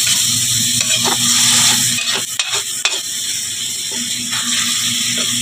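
Ground pork and garlic sizzling in a metal wok while a spatula stirs and scrapes it, with several sharp clicks of the spatula against the pan.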